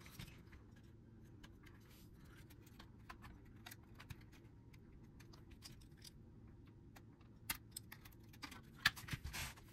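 Faint scattered clicks and light taps from a small flathead screwdriver and fingers on a plastic HO scale locomotive shell as its handrails are pried free. The clicks are a little louder about seven and a half seconds in and again near the end.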